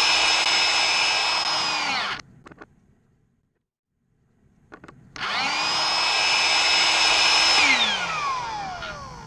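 Small electric motor running with a steady high whine that cuts off abruptly about two seconds in. After a few seconds of silence it runs again at full speed, then winds down with a falling whine near the end.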